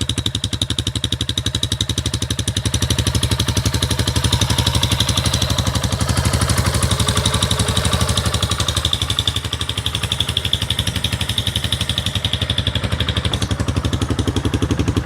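Yamaha Fazer 150's single-cylinder four-stroke engine running through a Roncar ML Competition aftermarket exhaust, mostly at idle, with loud, even exhaust pulses and slight swells in level.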